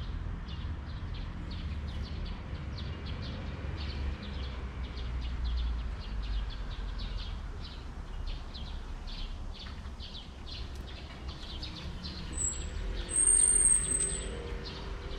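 Outdoor ambience with birds: short chirps repeating about three times a second, and a thin high whistled call near the end that is the loudest sound, over a low steady rumble of distant traffic.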